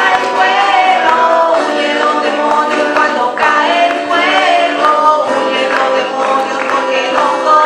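Church choir singing with guitar accompaniment.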